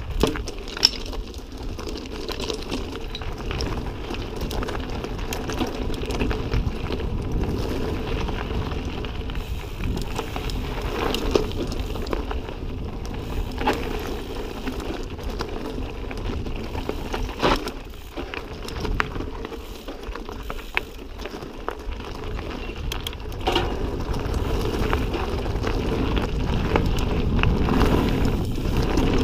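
Ibis Ripley mountain bike riding fast down rocky dirt singletrack: steady wind rumble on the microphone and tyre noise over dirt and rock, broken by sharp clacks and rattles as the bike hits rocks.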